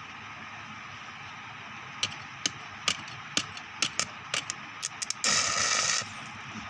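Arc welding: a string of sharp snaps as the electrode is struck against the work, then the arc catches and sizzles continuously for under a second before it breaks, over a steady background hiss.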